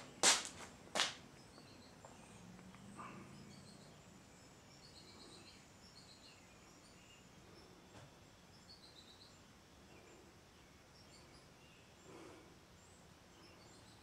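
A Hunter Silent Breeze ceiling fan coasting down after being switched off, almost silent, its bearings in good order. Two sharp clicks come in the first second. After them there is only a faint hiss with light, scattered high chirps.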